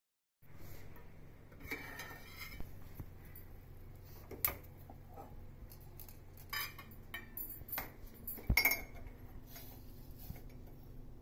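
Metal kitchen utensils clinking irregularly against a pan and a cup, a dozen or so sharp clinks over a low steady hum.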